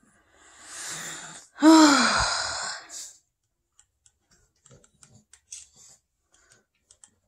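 A person's breath drawn in, then a loud sighing groan that falls in pitch, ending in a short breath out. Faint scattered clicks follow.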